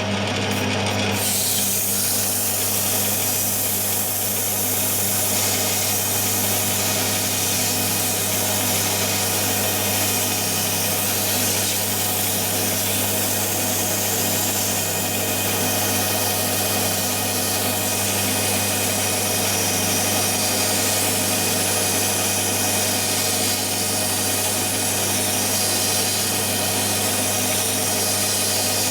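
Metal lathe running steadily at speed while the drive shaft is being worked down to size, a constant motor hum under a dense grinding hiss.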